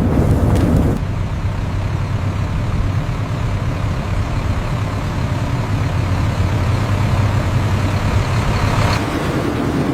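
A heavy engine running steadily with a low rumble, changing abruptly about a second in and again near the end.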